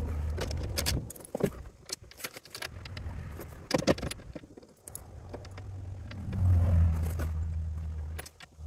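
Small metal bolts and retainers clicking and jingling in the hands as they are fitted to a skid plate, a string of sharp light clinks. A low steady rumble sits under the first second and comes back about halfway in, loudest a little after that.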